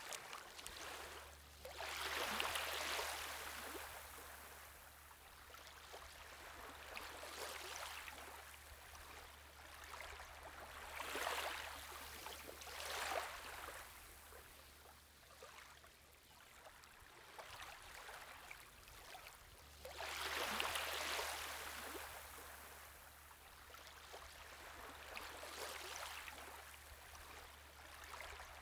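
Shallow water washing gently over gravel and sand, swelling and fading irregularly every few seconds like small waves lapping.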